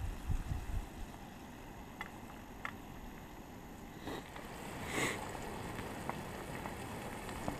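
Battered smelts sizzling steadily in pork fat in a cast iron pan over a gas camp stove. There are a few low bumps at the very start and a short rustle of the camera being moved about five seconds in.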